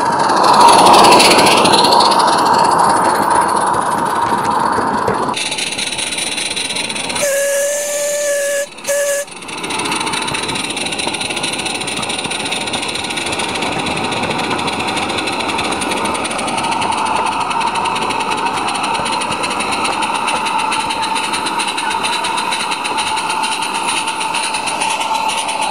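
Model live-steam narrow-gauge locomotive running, with steam hiss and wheel noise; steam is loudest over the first few seconds. About eight seconds in, its steam whistle gives one long toot and then a short one.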